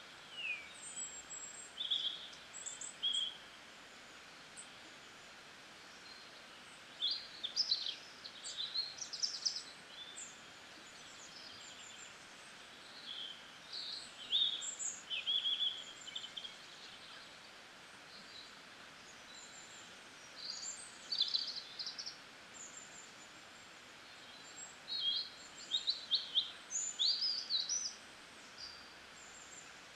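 Small birds chirping in short clusters of high calls every few seconds, over a steady faint hiss.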